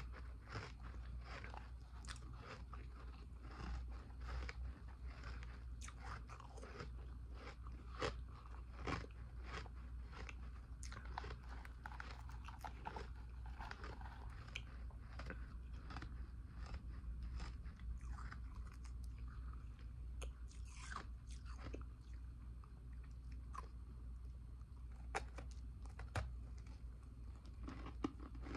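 A person biting and chewing powdery ice: dense, crisp crunches in quick, irregular succession.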